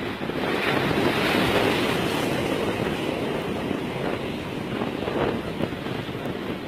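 Sea waves breaking and washing against shoreline rocks, with wind on the microphone. The surf swells up in the first second or two, then slowly eases.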